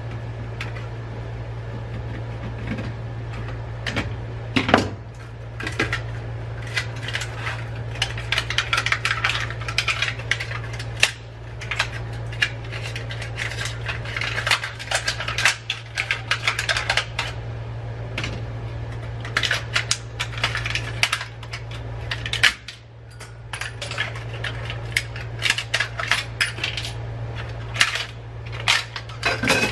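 Screwdriver scraping and prying at a fluorescent lamp ballast's sheet-metal housing and circuit board, with many irregular metallic clinks and rattles, over a steady low hum.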